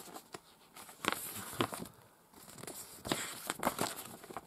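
Paper DVD booklet being opened and its pages turned by hand: paper rustling with a few sharp handling clicks, in two bursts about a second in and about three seconds in.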